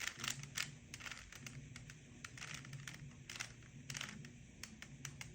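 A Rubik's Cube being turned by hand: a run of faint, irregular plastic clicks and clacks as its layers are twisted.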